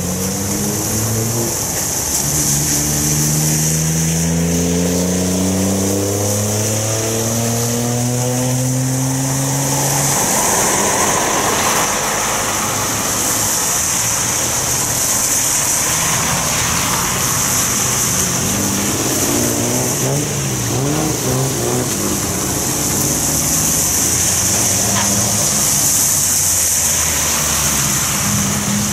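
Cars driving through a rain-wet intersection, their tyres hissing on the water-covered road. In the first ten seconds one car's engine climbs steadily in pitch as it accelerates, then cuts off suddenly. The rest is a mix of several engines passing.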